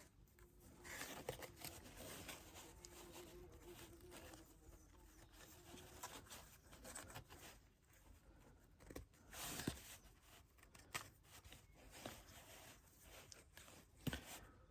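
Faint rustling and small clicks of a starter cord being handled and pulled through a leaf blower's plastic starter cover, with a faint steady hum in the first half.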